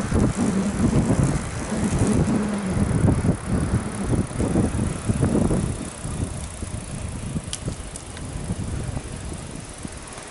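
Wind rumbling on the microphone and road noise while riding a bicycle, easing off about six seconds in.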